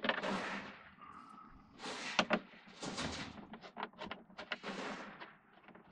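Hand screwdriver backing mounting screws out of the back of a flat-screen TV: a series of short scraping sounds and clicks with each turn.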